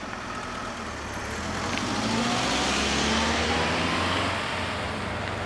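A car driving past close by over the level crossing. Its engine and tyre noise swells to a peak about three seconds in, then eases off.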